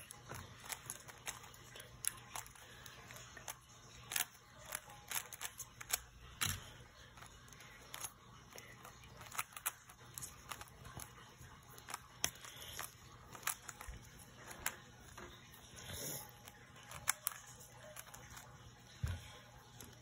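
Stickerless 3x3 speed cube being turned fast by hand, its plastic layers clicking and clacking in irregular runs of turns.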